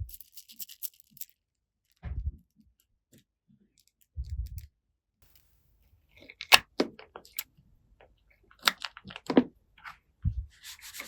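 Small plastic toy pieces handled close to the microphone: a few soft low thumps as pieces are set down, and a run of sharp clicks and taps in the second half.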